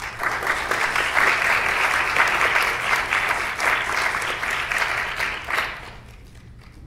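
Audience applauding a speaker who is being welcomed to the podium. The clapping starts at once, holds steady for about five seconds and dies away about six seconds in.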